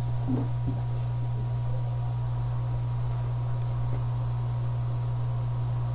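Steady low hum with a faint high tone over a light hiss: the background noise of a microphone recorded through a computer, with nobody speaking.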